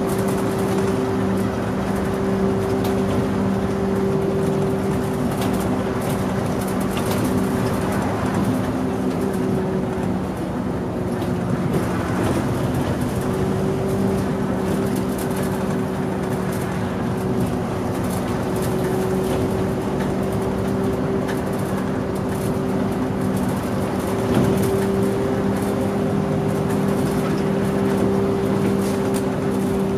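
Mitsubishi Fuso Aero Star bus's engine drones steadily with road noise, heard from inside the cabin as the bus drives along. The engine's pitch dips briefly about ten seconds in.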